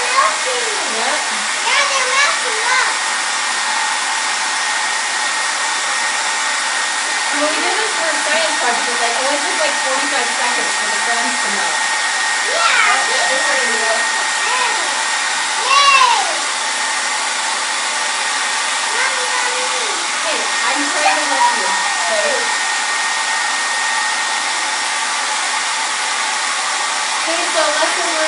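Hand-held hair dryer blowing steadily, a rush of air with a steady high whine through it.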